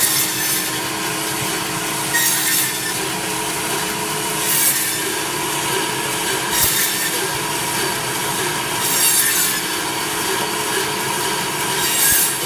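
Electric meat band saw running with a steady hum, its blade rasping through bone-in beef in six short cuts, about one every two seconds.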